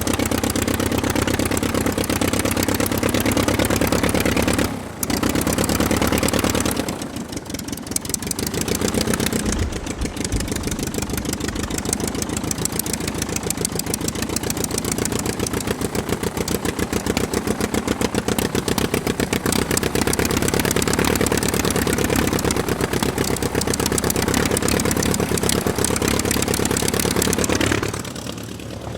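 Aircraft piston engine running steadily with a fast, even beat of firing pulses. It cuts out for an instant about five seconds in, sags for a moment around seven seconds before picking up again, and eases off near the end.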